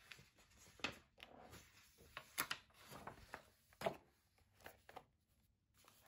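Handling a tray of soft pastel sticks and a paper sketchbook: irregular light clicks and knocks, about eight of them, over soft rustling of paper.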